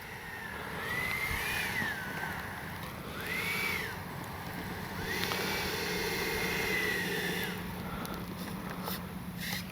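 Electric ducted fan of an FMS 80mm jet (12-blade fan on an in-runner motor) whining at low throttle while taxiing after landing. Its pitch rises and falls several times as the throttle is blipped, then settles as the jet is brought to a stop.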